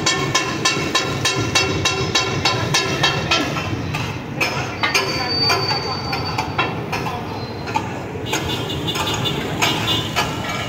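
Steel spatulas striking a large flat steel griddle in a fast, even clatter of ringing metallic clangs, about three to four a second. About three and a half seconds in, the strikes turn irregular and sparser.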